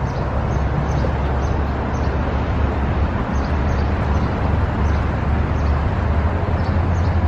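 Steady road traffic noise with a low rumble, with faint high chirps now and then.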